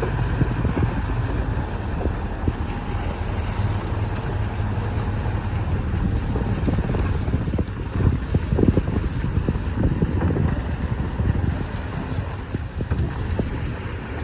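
Heavy diesel engine running steadily with a deep low rumble, over which come many irregular knocks and rattles.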